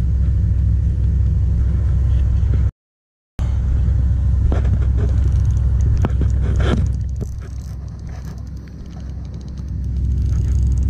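Steady low rumble of wind buffeting the body-worn camera's microphone, with a few faint clicks and rustles from a baitcasting reel and rod being handled. The sound cuts out completely for about half a second near three seconds in.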